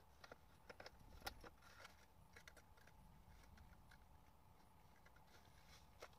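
Near silence with faint small clicks and taps, several in the first two seconds or so and one more near the end, from eyeshadow palettes being handled.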